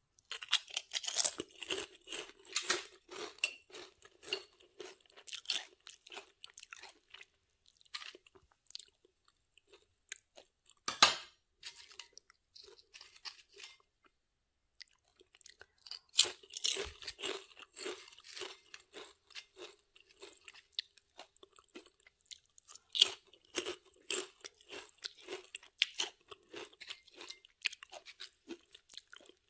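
Lay's paprika potato chips being bitten and chewed close up, in several runs of crisp crunching with short pauses between. One loud single crunch comes about eleven seconds in.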